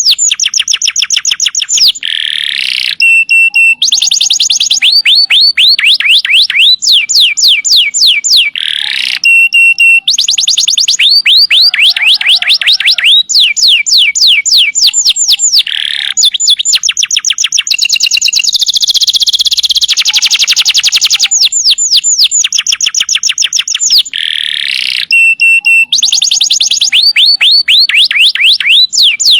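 Domestic canary singing loudly: phrase after phrase of rapid downward-sweeping trills, about five notes a second, with steady high piping notes and short pauses between phrases.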